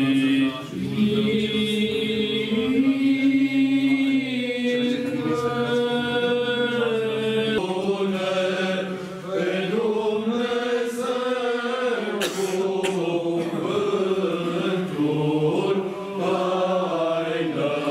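Eastern Orthodox liturgical chant: voices singing a slow, held melody, with a low sustained drone note under it that drops out about seven and a half seconds in.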